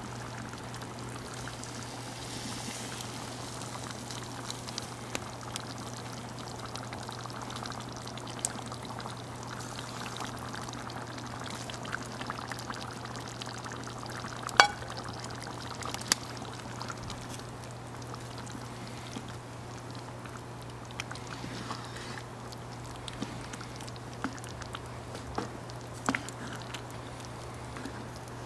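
Butter chicken curry bubbling at a simmer in a cast-iron pot over a wood fire, with scattered small pops and crackles throughout and one sharp pop about halfway through.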